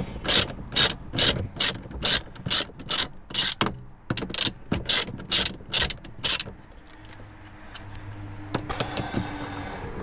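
Small hand ratchet with an M12 bit clicking in quick, even back-strokes, about two to three a second, as it spins out a steering wheel's centre bolt that has just been broken loose. The clicking stops about six and a half seconds in, leaving a faint low hum.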